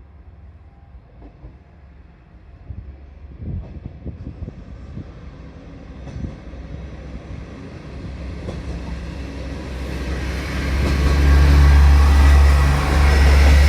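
A train approaching, its rumble and rail noise growing steadily louder and at its loudest over the last three seconds.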